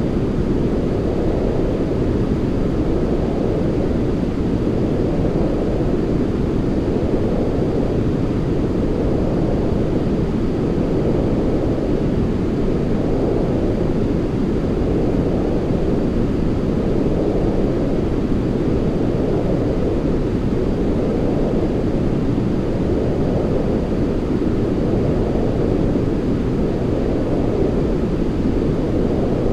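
Continuous white-noise-style sleep sound, deep and rushing with most of its weight in the low end, swelling slightly every few seconds.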